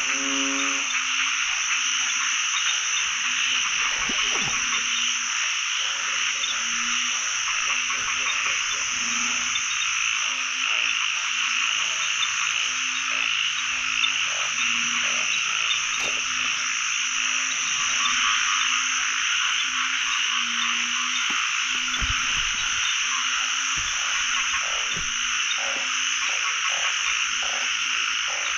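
Breeding chorus of narrow-mouthed frogs (อึ่ง) calling all over a pond: a dense, steady chorus, with a short low croak repeated over and over, about one or two a second.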